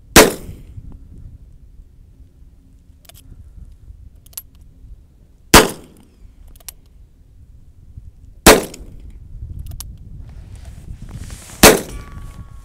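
Four handgun shots fired one at a time, a few seconds apart, each a sharp crack with a short tail.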